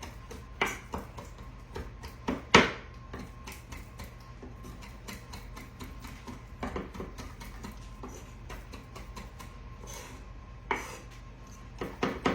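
Knife chopping fresh herbs: a run of uneven, sharp taps with a few louder knocks, quickening near the end.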